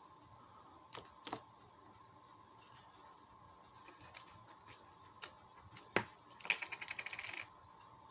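Scattered sharp clicks and taps of small plastic parts being handled, with a quick run of rattling clicks about six and a half seconds in, as servo arms are fitted. A faint steady whine sits underneath.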